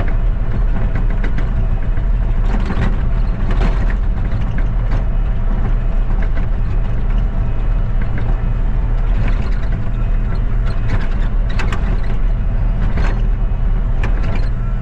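A vehicle engine running steadily, with a strong low hum and scattered clicks and rattles over it.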